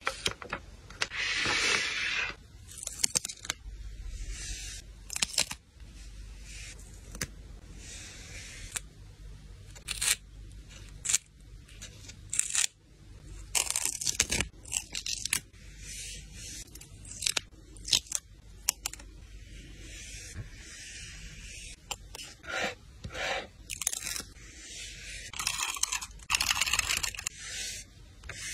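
Close-up sounds of journaling stationery being handled: paper and stickers rustling, peeling and tearing, with scraping and sharp little taps and clicks in quick, uneven succession.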